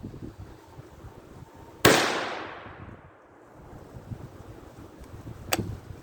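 A single rifle shot from a Ruger American in .17 HMR about two seconds in, a sharp crack whose echo fades over about a second. Wind buffets the microphone throughout, and a sharp click follows near the end.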